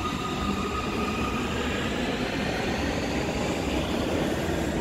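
Munich U-Bahn Type C2 (Siemens) train pulling out of the station: a steady rumble of wheels on rail with a high electric whine that fades out about a second in.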